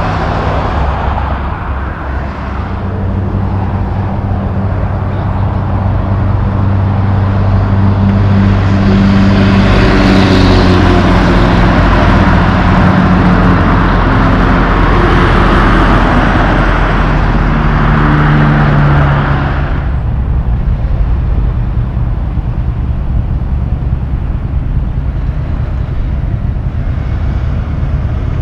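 Road traffic passing on a highway, with vehicles going by and engine drones that build and peak through the middle. At about twenty seconds in, the sound changes abruptly to quieter steady traffic at a street intersection.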